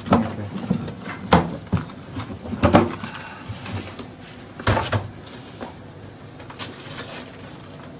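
Sharp metallic knocks and clunks from safe-deposit locker compartments being opened and handled: four or five separate knocks within the first five seconds, then a quieter stretch.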